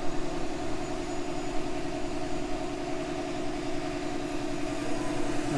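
A machine running steadily, a constant-pitched hum with no change in speed.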